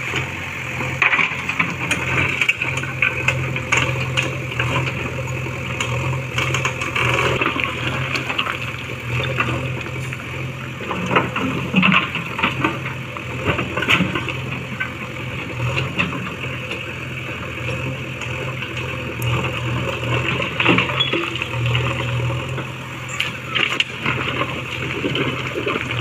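JCB 3DX backhoe loader's diesel engine running steadily as the backhoe arm digs, with scattered sharp knocks and clatter from the bucket working through rocks and stony earth.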